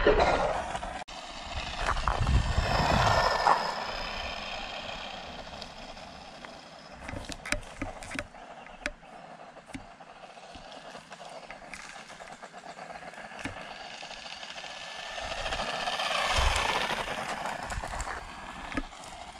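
Tamiya DT-01 RC buggy with a brushed 540 'Silver Can' electric motor, its whine rising and falling as it runs close by, once a few seconds in and again near the end. Between the passes there are scattered clicks of gravel and tyre crunch on a dirt road.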